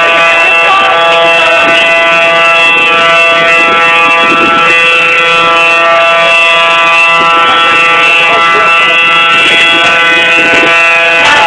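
Outdoor tornado warning sirens sounding a loud, steady tone made of several pitches held together, with no rise or fall: the warning signal for an approaching tornado.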